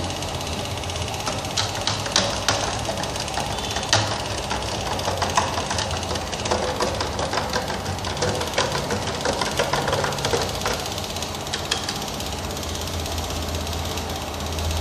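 Small electric pump on a fuel-filter test rig running with a steady low hum as it pushes diesel through the filters and hoses into plastic bottles. Irregular clicks and rattles sound over it, mostly in the first two thirds.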